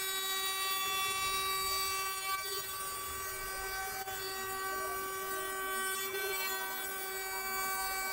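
800 W CNC router spindle at 24,000 rpm surfacing a wooden board with a facing cutter, giving a steady high whine with several overtones over the light hiss of the cut.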